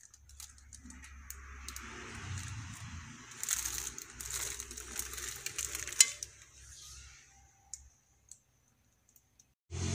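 Light handling noise: a soft rustle with scattered small clicks and clinks, the sharpest about six seconds in, fading to near silence about eight seconds in.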